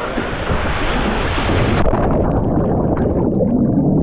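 Rushing water on a natural rock water slide. About two seconds in, the high end cuts off suddenly and the water turns to a muffled underwater churning as the microphone goes under in the pool.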